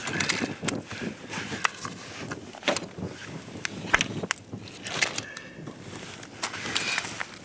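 Handling noises as a crappie is unhooked from a jig: clothing rustling with scattered sharp clicks and taps at irregular intervals.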